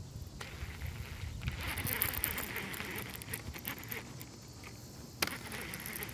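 Water splashing and lapping around a fishing kayak, with scattered small knocks and one sharp knock about five seconds in.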